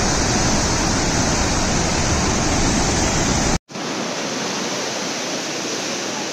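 A river in flood rushing through a barrage: a loud, steady rush of water with heavy low rumble. It cuts out abruptly about three and a half seconds in, then resumes as a thinner rush with less rumble.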